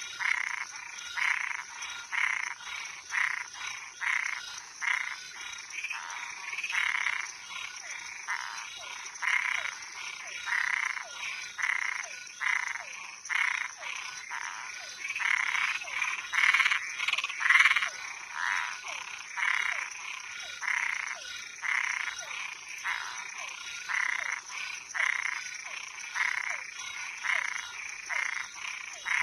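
A chorus of frogs calling, a quick run of short croaks about two a second, over a steady high-pitched drone.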